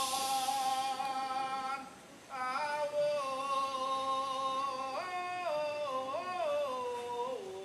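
Male voice singing a slow Kecak melodic line in long held notes that slide between pitches, with a brief break about two seconds in.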